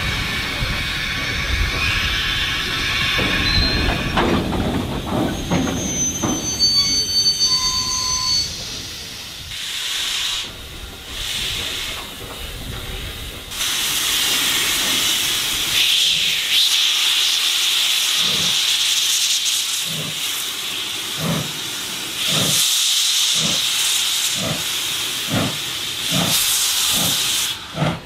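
Steam locomotive hissing steam, with a few brief high tones and a broad rumble in the first third. From about halfway through, regular exhaust chuffs come faster and faster, from about one a second to nearly two a second, as the engine gets under way.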